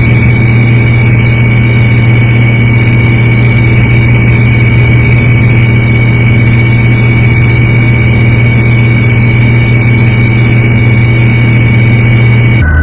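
Helicopter engine and rotor noise heard from on board: a loud, steady drone with a high whine over it, changing abruptly near the end.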